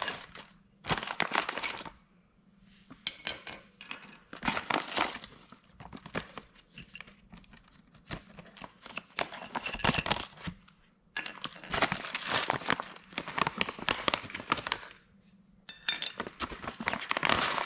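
Metal mounting hardware (bolts, washers and bolt-welded brackets) clinking and rattling in irregular bursts as it is handled and sorted, with some rustling between the bursts.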